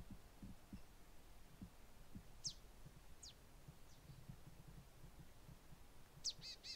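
Near silence: faint outdoor ambience with soft, irregular low thumps and a few brief, high, falling bird calls, the clearest about two and a half seconds in and near the end.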